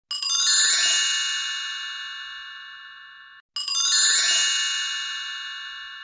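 A bright, many-toned chime sound effect rung twice, about three and a half seconds apart, each ring fading away slowly; the first is cut off suddenly just before the second starts.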